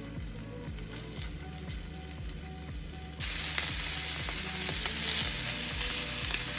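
Food sizzling in a hot frying pan. The sizzle jumps suddenly louder a little after three seconds in.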